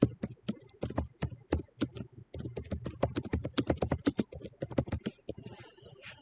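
Typing on a computer keyboard: a quick, irregular run of keystrokes, with a brief pause about two seconds in.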